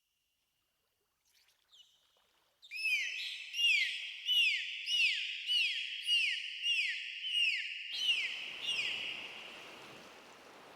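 Dolphins whistling: a run of short arching whistles, about one and a half a second, each rising then falling. A steady wash of sea noise comes in near the end as the whistles fade.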